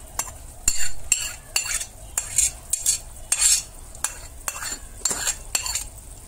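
A steel spoon repeatedly scrapes and clinks against a ceramic plate as cooked beef and potato chunks are pushed off it into a rice cooker pot. The strokes come in an uneven run of sharp clicks and scrapes, about two or three a second.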